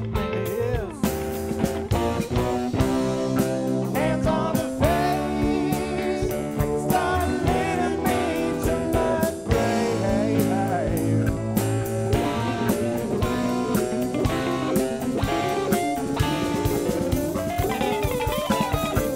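Live jam-band instrumental passage: electric guitar lead with bending notes over bass guitar, drum kit and keyboard, with one note sliding steadily upward near the end.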